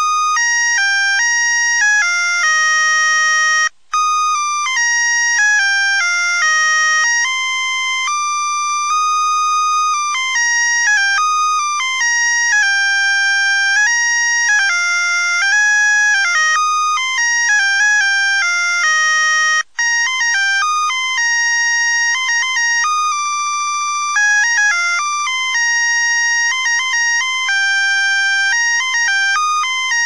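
Tinny electronic melody from the music chip of a Christmas light string: a single-line beeping carol tune, one note after another with bright overtones and no bass. It cuts out for a moment twice, about four seconds in and near twenty seconds in.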